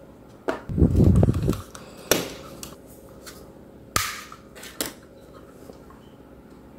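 Hands handling small rigid white PVC sheet pieces over a cutting mat: a low rubbing, bumping scuffle about a second in, then three separate sharp clicks of hard plastic tapping and being set down.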